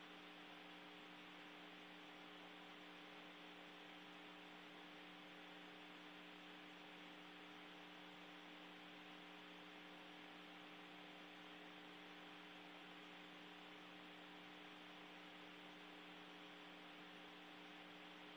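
Near silence: a steady low hum made of several even tones, under a faint hiss.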